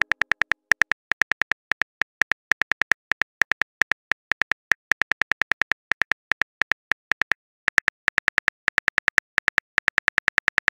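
Phone keyboard typing sound effect: a steady run of short, identical clicks, about six a second, one per letter, with a brief pause about seven seconds in.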